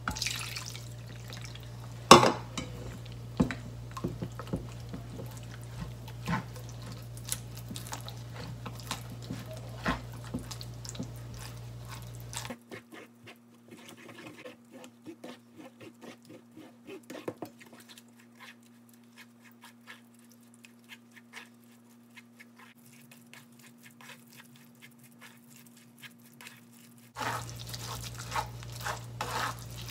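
Wooden paddle mashing wet, cooked azuki beans against a stainless mesh sieve over a metal bowl: irregular soft scraping and squishing strokes, with water poured onto the beans at the start and a sharper knock of the paddle about two seconds in.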